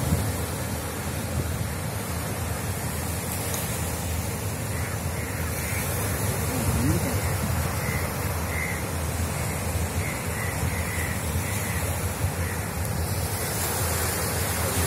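Steady wind on the microphone over water washing against a rocky breakwater, with a run of short crow caws through the middle.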